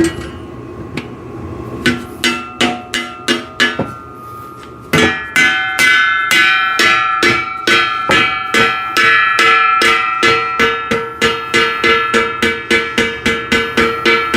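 Rubber mallet hammering a tight-fitting steel tube of a sissy squat machine's frame into its sleeve. Each blow makes the steel ring. A few spaced blows come first, then a fast, steady run of about three blows a second from about five seconds in.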